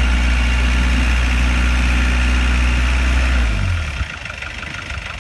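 Old Willys-type jeep's engine running steadily and loudly as it works through deep mud, then falling off to a lower, quieter run about three and a half seconds in.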